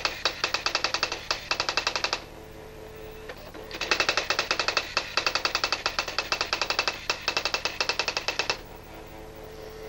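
Robotron Erika S 3004 daisy-wheel electronic typewriter printing, a rapid, even run of sharp strikes line after line. It stops twice for a couple of seconds between lines, with a faint hum in the pauses.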